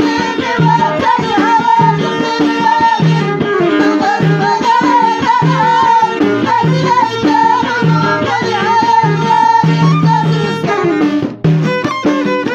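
Moroccan Middle Atlas folk music played live: a steady hand-drum beat under a wavering melody line, with a brief drop-out about eleven seconds in.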